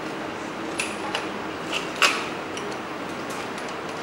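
Light, scattered clicks and taps of plastic parts being handled at an assembly bench, over a steady background hum; the sharpest click comes about two seconds in.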